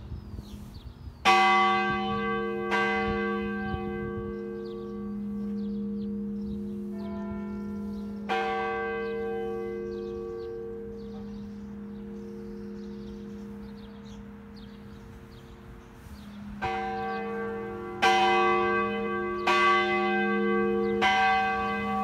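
Church bell rung by hand from below, each strike ringing on over a long steady hum. Two strikes come close together at the start and another about eight seconds in; the ring fades in a lull, then four strikes follow in quick succession near the end.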